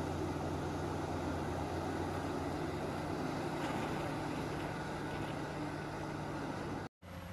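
Caterpillar 6015B hydraulic mining excavator's diesel engine running steadily under load while it swings and dumps a bucket of earth into a dump truck. The sound cuts out abruptly for a moment near the end, then a quieter machine sound follows.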